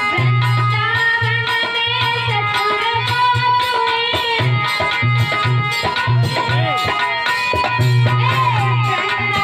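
Instrumental music from a Hindi devotional bhajan: a bending melody line over steady hand-drum strokes in a regular rhythm.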